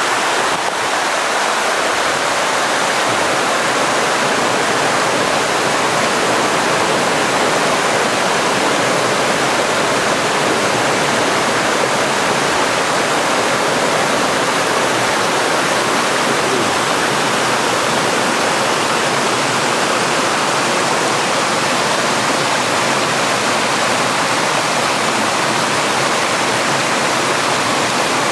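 Forest stream rushing and splashing over boulders in small cascades, a loud, steady rush of water.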